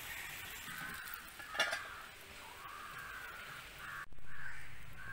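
Crows cawing, with a short metal clink about a second and a half in as the aluminium lid is set on the appam pan. The sound drops out for a moment around four seconds in, then the cawing comes back louder.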